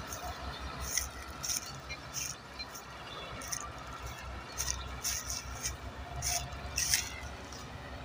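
Two tractors' diesel engines running hard together under load, a steady low drone, with sharp crackles and ticks scattered through it.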